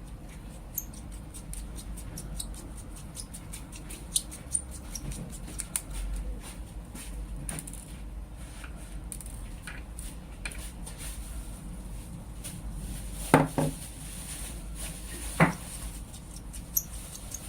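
Small clicks, ticks and light clinks of metal lightsaber hilt parts being handled and taken apart, with two louder knocks about two seconds apart near the end.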